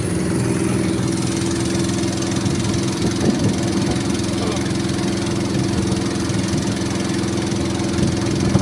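Small boat's engine running steadily at one speed, with water rushing and splashing along the hull.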